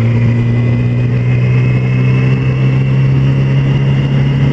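2007 Yamaha YZF-R6's 599 cc inline-four engine running at steady revs while riding, its pitch rising slightly, heard from a helmet-mounted camera.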